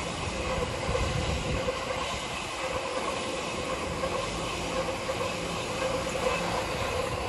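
Keihin-Tohoku / Negishi Line electric commuter train running on the rails: a steady rumble of wheels on track with an even hum of a few steady tones over it.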